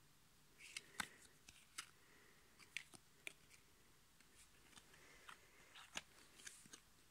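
Faint handling of glossy trading cards: scattered small clicks and brief rustles as the cards slide against each other and are picked up, with the sharpest clicks about a second in and about six seconds in.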